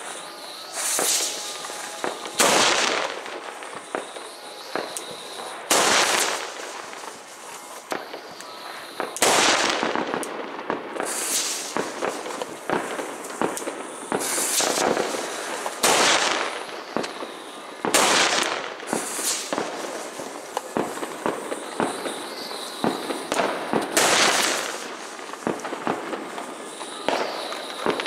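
Fireworks and firecrackers exploding repeatedly: a loud bang every two or three seconds, each briefly ringing out, over a constant scatter of smaller, fainter pops.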